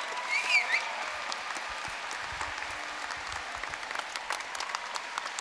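An audience applauding steadily in a large hall. A short, high-pitched cry rises above the clapping about half a second in.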